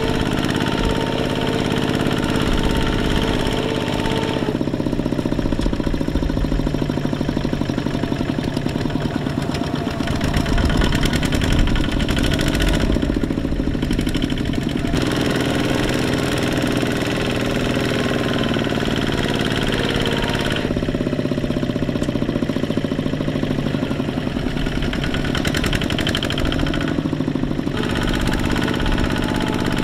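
Kubota two-wheel walking tractor's single-cylinder diesel engine chugging steadily as it pulls a loaded trailer through a muddy field, its note shifting several times as the throttle and load change.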